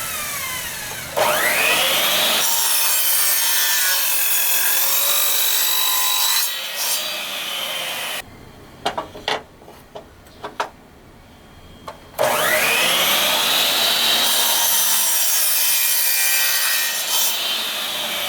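Electric power tool cutting and grinding through a wooden plank, its motor whining up to speed about a second in. It stops for about four seconds after the 8-second mark, with a few knocks while the wood is handled, then spins up and cuts again.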